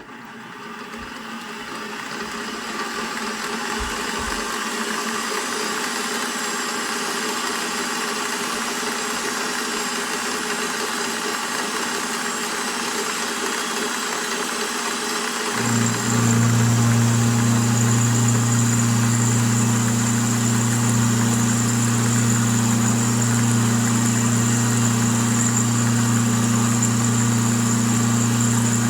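Milling machine running as a slot is cut in steel bar stock: a steady machine noise that builds over the first few seconds. At about the halfway point a louder steady hum with a high whine cuts in and holds.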